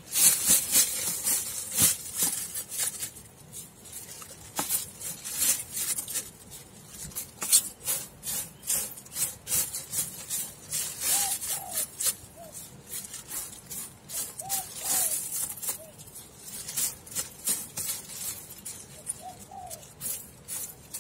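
Dry perilla seeds and crumbled chaff rustling and crackling as a plastic-gloved hand stirs and rakes them around a plastic tub. A bird chirps faintly three times in the background.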